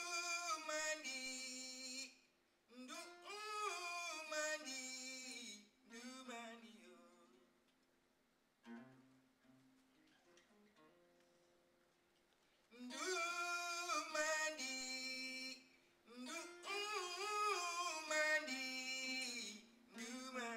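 A man singing in long phrases with sliding pitch over a plucked acoustic guitar. In the middle there is a quiet stretch of several seconds where only the guitar sounds faintly, and then the singing returns.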